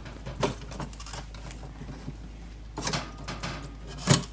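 Water valve of a Voss in-wall toilet cistern being lifted out by hand, giving a few scattered knocks and rattles against the cistern, the loudest knock near the end.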